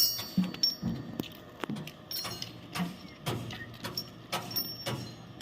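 Irregular metal-on-metal knocks and clinks, a couple a second, some ringing briefly: steel tools working on the excavator bucket's teeth.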